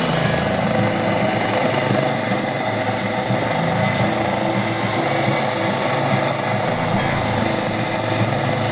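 Coast Guard helicopter in flight, its rotor and engine running steadily.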